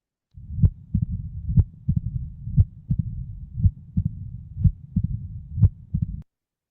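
Recorded heart sounds of mitral stenosis, the Duroziez rhythm: a loud, sharp first heart sound about once a second, each followed by fainter second-sound and opening-snap clicks, with a low-pitched diastolic rumble between the beats. The recording starts and cuts off abruptly.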